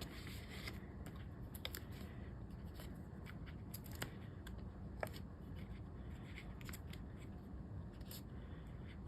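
Faint, scattered light clicks and rustles of die-cut paper pieces being slid and shifted around on a card front while their placement is tried out.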